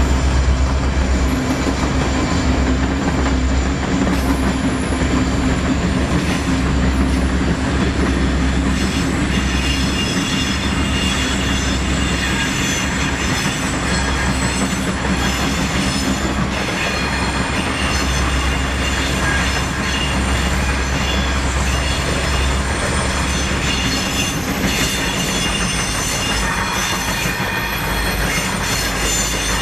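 Freight train running at speed, heard from a vehicle pacing alongside: a steady, loud rumble with thin high squealing from the wheels on the rails.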